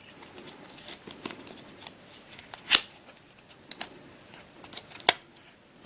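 Light handling noises: soft rustling and small clicks as plastic puzzles and packaging are handled, with two sharper clicks, one near the middle and one about five seconds in.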